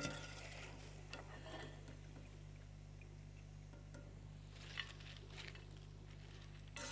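Faint clinks and scrapes of a metal strainer against a pot as fried potato chips are lifted out of the oil and tipped onto a plate, over a low steady hum.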